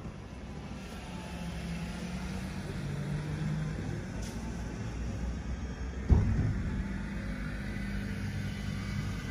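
Motor vehicle engine running on the street, a steady low hum that shifts slightly in pitch. A single sharp thump comes about six seconds in.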